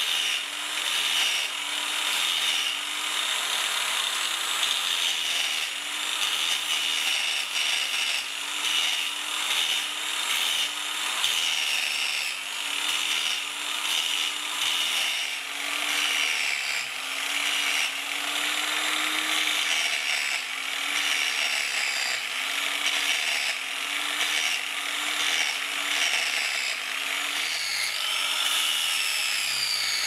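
Angle grinder with a sanding disc on a backing pad, grinding the steel of a multitool hatchet and throwing sparks. The motor runs steadily, its pitch dipping and rising as the disc is pressed on and eased off, under a continuous harsh scratch of abrasive on metal.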